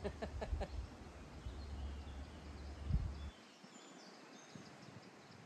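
Faint birdsong, a few short high chirps, under a low rumble on the microphone with a few clicks that cuts off abruptly about three seconds in.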